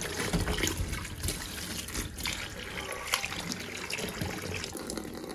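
Water running and trickling while ackee is being washed, with a few light knocks from handling.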